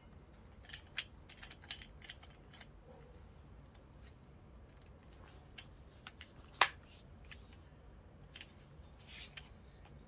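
Ulanzi Hummingbird quick-release mount and phone clamp being handled and fitted together: scattered small clicks of metal and plastic parts, with one loud sharp click about two-thirds of the way through.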